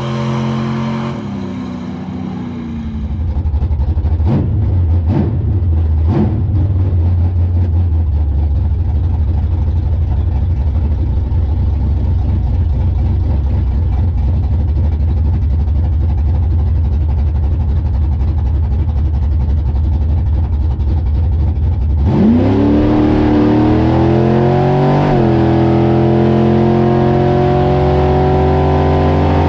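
A 1976 Chevy Nova drag car's 355 small-block Chevy V8 heard from inside the car: a loud low idle with three quick throttle blips a few seconds in, then about 22 s in the revs climb and are held high, dipping once and climbing again. The opening seconds hold a fading engine note falling in pitch.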